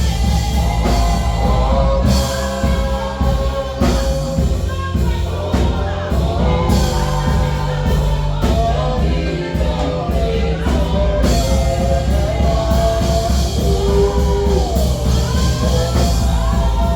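A choir singing with a live band of drum kit and bass, loud and amplified.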